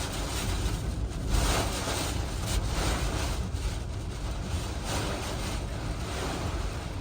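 Hurricane wind gusting and buffeting the microphone, a steady rumble and rush that swells in gusts, the strongest about a second and a half in.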